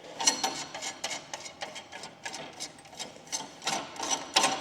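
Threaded all-thread rod scraping and clicking against the metal of a front coil spring and its suspension as it is pushed down through: an irregular run of short clicks and rasps.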